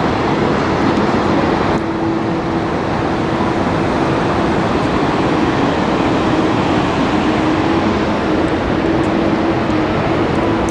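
Steady, loud rushing noise with a faint steady hum underneath.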